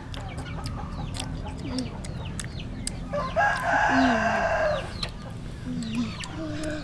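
A rooster crows once, a harsh call about a second and a half long starting a little over three seconds in, the loudest sound here. Short high chirps come and go throughout.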